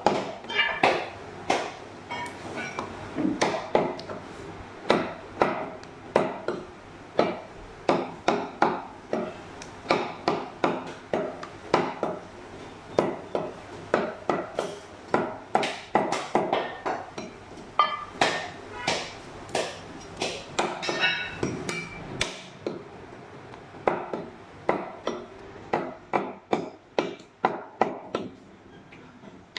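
Butcher's cleaver chopping through a goat's leg, a long run of sharp strikes at an uneven pace of roughly two a second.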